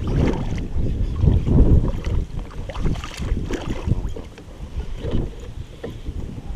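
Wind buffeting the microphone on an open kayak in uneven gusts, with a few light clicks.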